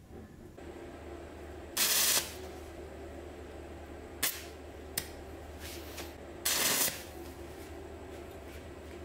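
Stick (arc) welding on a steel bolt held in a vise: two short bursts of arc noise, about two seconds in and again about six and a half seconds in, with a couple of sharp clicks between. A steady welder hum runs under them.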